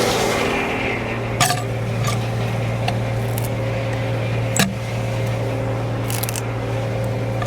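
Frick No. 1 sawmill and its power unit running steadily with a low hum. A higher rushing noise dies away within the first second, and half a dozen sharp metallic knocks and clanks come at uneven intervals.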